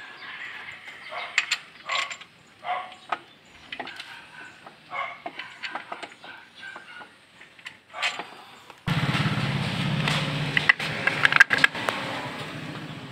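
Metal clicks and knocks of tools and parts being handled during work on a car. About nine seconds in, a steady noisy sound with a low hum starts suddenly.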